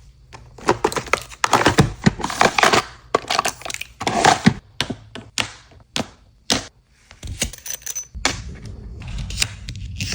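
Stationery items and packaging being handled: an irregular run of sharp clicks, taps and short rustles, with a steadier stretch of rustling near the end.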